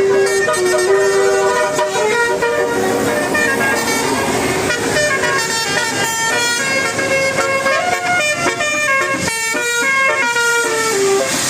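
Bus telolet horn, a multi-tone musical air horn, playing a tune of quick stepped notes.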